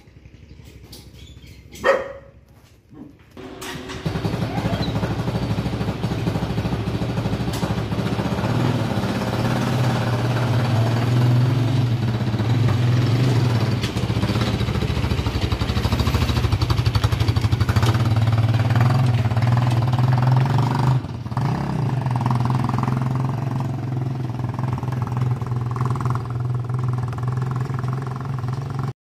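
A motorized cargo tricycle's motorcycle engine starts about four seconds in and then runs steadily, with a brief drop in level about three-quarters through. A single sharp sound comes just before it starts.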